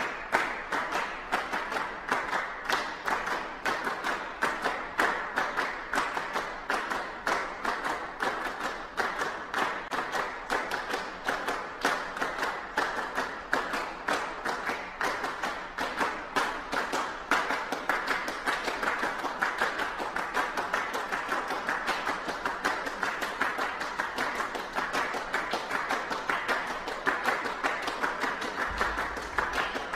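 Audience applauding: many hands clapping at once. The clapping swells in a regular pulse through the first half, then evens out into steady applause.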